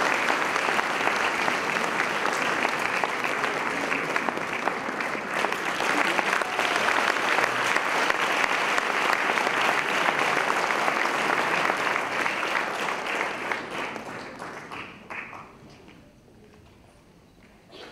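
Audience applauding steadily, then dying away over the last few seconds to a few scattered claps.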